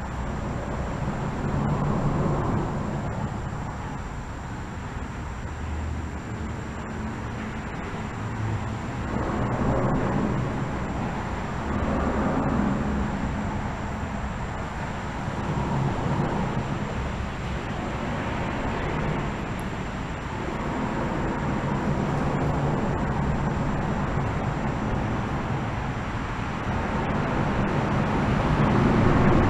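Steady road traffic noise, with vehicles swelling past and fading every few seconds.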